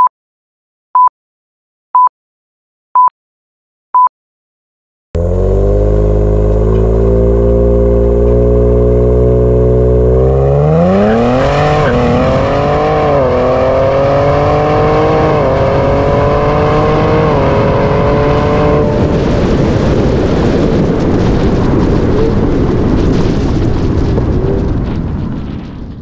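Five short electronic countdown beeps a second apart, then a tuned Ford Explorer ST's twin-turbo V6 with aftermarket exhaust running loud at steady revs for several seconds before accelerating hard, its pitch rising and dropping at each of three upshifts. After that the engine tone sinks under a steady rushing noise, which fades out at the end.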